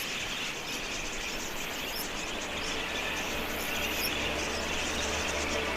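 A flock of wild budgerigars chirping and chattering: a dense, steady mass of small high calls.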